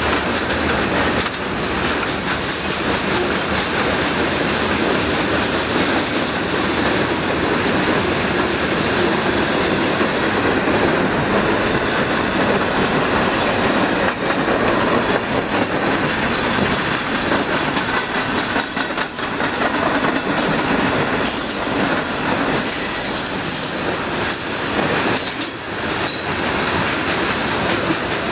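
Freight cars of a long CSX train, mostly covered hoppers, rolling steadily past on steel wheels with a continuous rumble and clack over the rail. A thin, high wheel squeal comes and goes over it, strongest in the last third.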